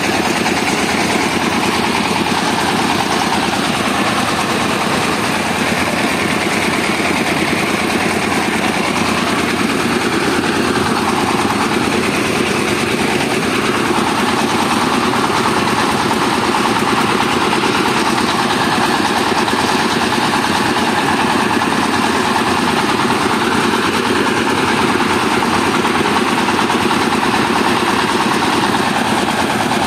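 Mobile rice mill running steadily: its engine drives the rice huller and polisher at a constant speed while grain is milled.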